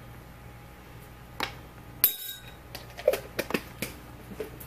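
Clinks and knocks of glassware and jars being handled on a kitchen counter: one sharp, ringing clink about two seconds in, then a quick run of light taps.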